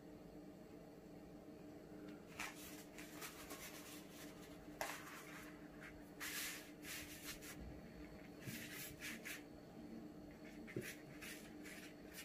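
Thin yufka (phyllo) pastry sheets rustling as they are laid and pressed into a tart pan, and a silicone brush dabbing and spreading melted butter over the dough. The sounds come in short, soft scraping bursts.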